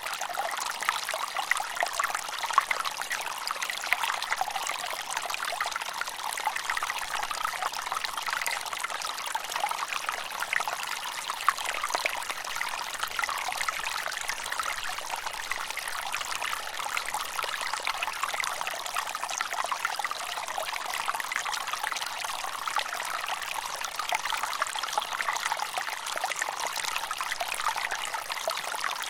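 Mountain stream flowing steadily: water trickling and splashing over rocks, a bright, even rush with frequent small splashes.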